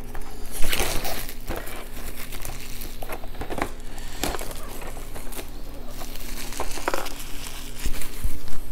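Crinkling, rustling and scraping as a cardboard miniatures kit box is handled and unwrapped, with a couple of knocks near the end as the box is set down on a wooden table.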